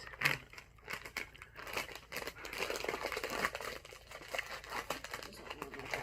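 Bag of jalapeño chips crinkling and crackling as it is handled and pulled open.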